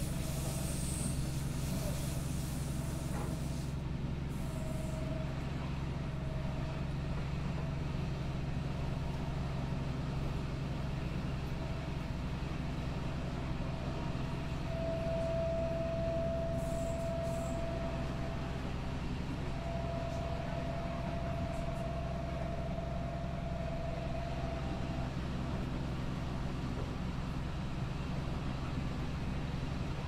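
Inside the front of a Deutsche Bahn train: a steady low rumble with a thin whine above it that comes and goes, loudest through the middle stretch, and a few faint high clicks.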